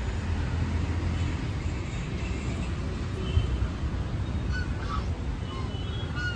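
A steady low rumble with short bird calls from about halfway through.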